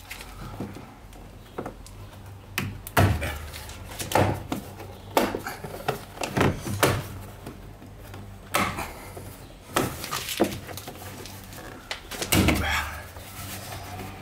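Plastic van interior trim being worked off by hand: about ten irregular clunks and sharp clicks as trim clips pop out and panels knock against the body.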